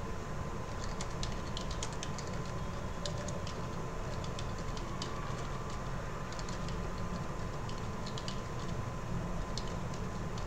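Computer keyboard keys clicking in irregular runs as a command is typed, over a steady low hum with a faint steady whine.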